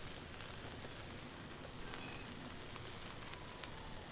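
Food frying on a Blackstone gas flat-top griddle: a faint, steady sizzle with scattered small crackles.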